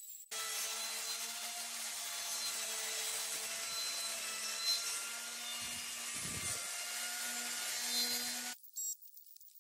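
Metabo angle grinder running with its disc grinding into a wooden blank turned on a lathe: a steady motor whine under a rough, rasping noise of wood being abraded. It stops abruptly near the end.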